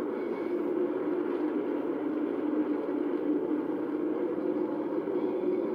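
Steady jet engine noise from a formation of four F-16 fighter jets flying overhead.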